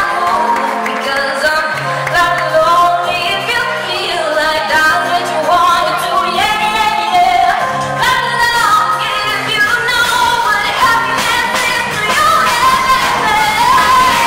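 Children's choir singing a pop song with live band accompaniment, the sung melody carried over steady low sustained notes.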